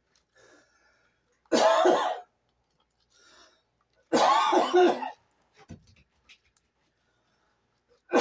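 A woman coughing and clearing her throat in three voiced fits, about a second each: one about a second and a half in, one about four seconds in, and a third starting right at the end. She is coughing after swallowing food and drink together, so that it went down the wrong way.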